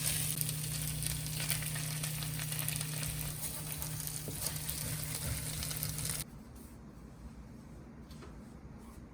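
Food sizzling in a frying pan over a steady low hum. Both cut off abruptly about six seconds in, leaving faint room noise with a few light clicks.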